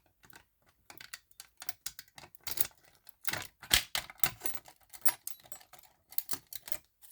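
A fast, irregular run of sharp clicks and light rattles from small hard objects being handled.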